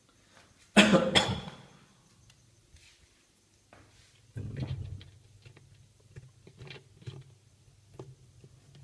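Handling noises on a top-loading washing machine's plastic tub: a loud sudden clatter about a second in, a duller knock around the middle, then scattered light clicks as a hand works at the pulsator's centre screw.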